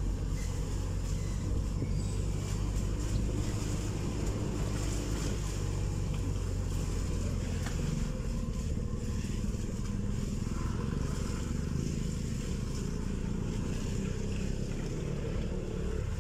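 Steady low rumble of a running vehicle engine, without let-up.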